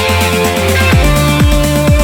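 Electronic background music with a steady kick-drum beat under sustained synth tones.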